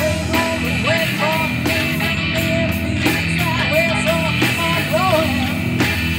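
Live rock band playing: electric guitars, bass guitar, keyboards and drum kit, with a melody line that bends and wavers in pitch over steady chords and drum hits.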